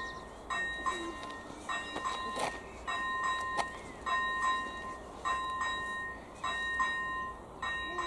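Electronic level-crossing bell (AŽD ZV-01) ringing a bell-like tone repeated about once a second, the warning that the crossing is closed for an approaching train.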